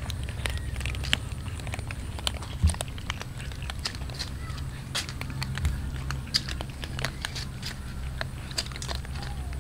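A crowd of cats crunching and chewing dry kibble, a dense scatter of small sharp crunches and clicks over a steady low rumble.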